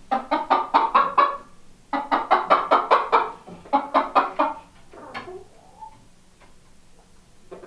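Domestic chicken clucking in three quick runs of about a second each, roughly seven clucks a second, then a softer drawn-out call about five seconds in.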